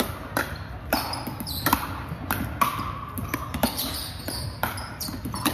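Pickleball doubles rally: the hollow plastic ball cracking off paddles and bouncing on the hardwood court, a sharp hit about twice a second.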